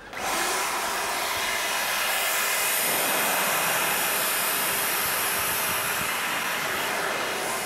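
Small electric chainsaw starting suddenly and running steadily at full speed as it is pushed into a prop body under a surgical drape.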